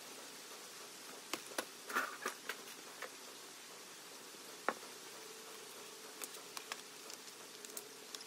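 Drawing tools being set down and moved about on a paper-covered wooden workbench: a run of sharp clacks and taps of plastic and metal a second or two in, one louder knock about halfway, then lighter taps and shuffling near the end. A faint steady hiss and hum lies underneath.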